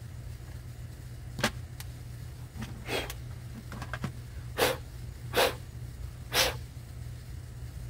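Parts-handling sounds while an outboard carburetor is taken apart: a scattering of short clicks and knocks, with three stronger ones about a second apart in the second half, over a steady low hum.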